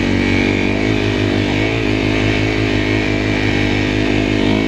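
Engine of a tracked snow machine running at a steady cruising throttle under way, a constant drone with only small swells in pitch.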